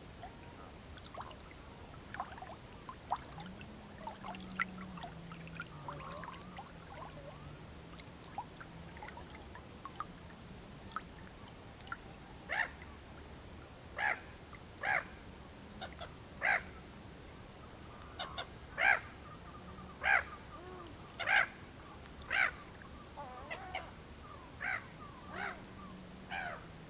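Whooper swans calling across the lake, with echoes, among other birds. Scattered faint calls come first, then about halfway through a run of short, loud, trumpet-like honks, roughly one a second.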